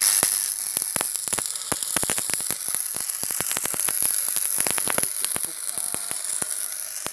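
Stick (shielded metal arc) welding on steel tubing: the electrode's arc sizzling steadily with rapid sharp crackles and pops.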